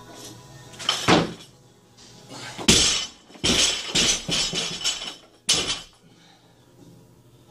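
A 60 kg barbell loaded with rubber bumper plates is dropped onto a lifting platform. It hits the floor with a loud crash a little under three seconds in, then bounces and rattles for a couple of seconds. A knock comes about a second in, and a last sharp thud follows about five and a half seconds in.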